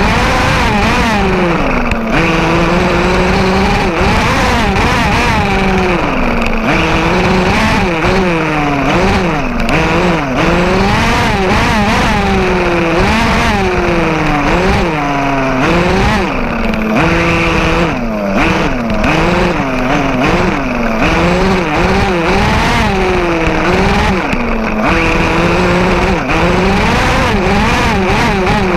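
1/5-scale RC off-road truck's motor revving up and down again and again as it is driven, heard from a camera mounted on the truck, its pitch rising and falling about once a second.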